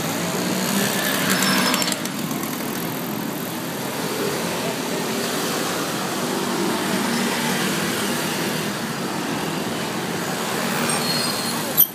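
Street traffic: taxis, cars and motor scooters passing at low speed with their engines running, one louder vehicle going by in the first two seconds. A short sharp click comes just before the end.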